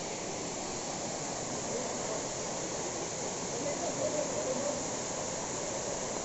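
Steady rushing of a waterfall cascading over rock ledges into a pool, with faint voices in the background.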